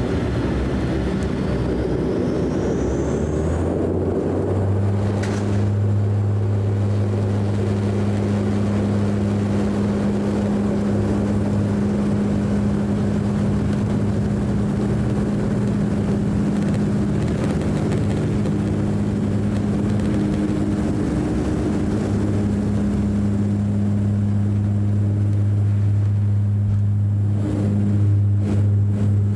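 Dash 8 Q400 turboprop engines going to takeoff power, heard from the cabin beside the six-blade propeller. A rising whine comes first, then a steady deep propeller drone with a higher overtone as the aircraft accelerates down the runway.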